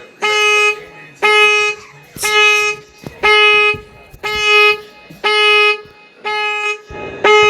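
Nissan Rogue SV's horn honking over and over, about once a second, each honk a steady single-pitched blare of roughly half a second. This is the car's panic alarm, set off from the key fob.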